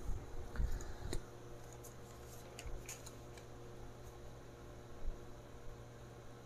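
Faint handling sounds: a few soft knocks in the first second, then scattered light clicks and rustles, over a steady low hum.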